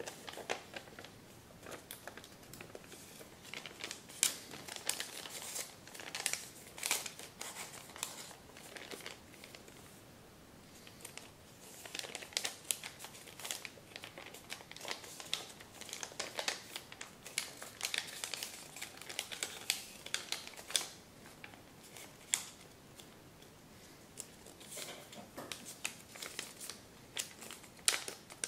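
A large sheet of Kami origami paper crinkling and rustling as hands fold and reshape it, in irregular crackles with a quieter spell about ten seconds in and another a few seconds before the end.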